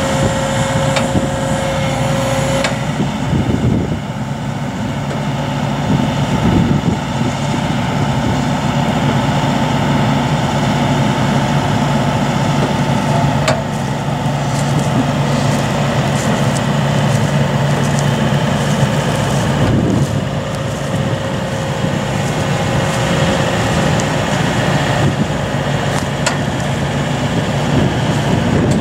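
A John Deere excavator's diesel engine runs steadily as the machine holds and swings a suspended fiberglass pool shell. A steady warning tone sounds over it for the first few seconds.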